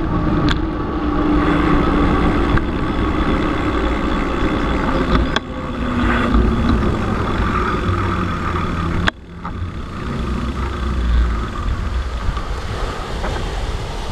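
Wind buffeting the microphone of a bicycle-mounted camera, with the rumble of knobby bicycle tyres rolling on asphalt. The noise drops abruptly twice, about five and nine seconds in.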